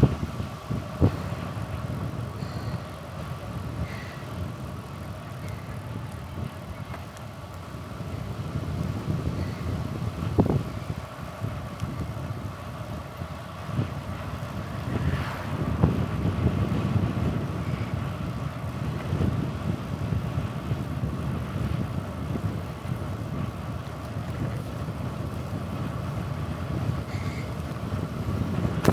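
Wind rumble and tyre noise from a moving bicycle, with a few sharp clicks and rattles.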